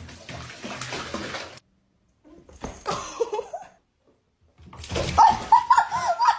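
Water splashing in a bathtub as a cat scrambles in it, then after a break a run of short, rapidly wavering high cries, with more splashing in the last seconds.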